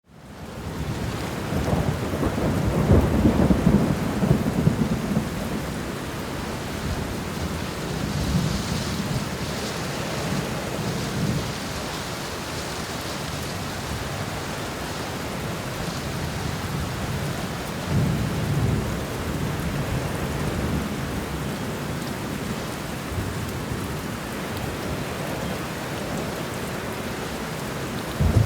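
Steady rain with rolling thunder. The sound fades in at the start, the longest and loudest rumble comes about two to five seconds in, further rumbles follow around ten and eighteen seconds in, and there is a short, sharper crack right at the end.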